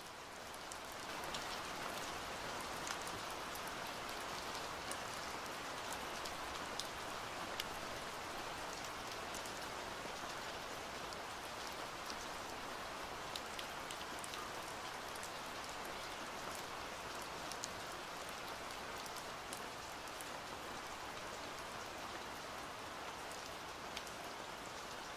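Steady rain falling, a soft even hiss with scattered sharper drop taps, swelling in about a second in.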